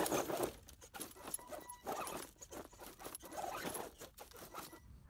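RC rock crawler's brushed 540 electric motor and gear drivetrain whining in short on-off bursts while its tyres scrabble over rocks and gravel. The sound stops a little before the end.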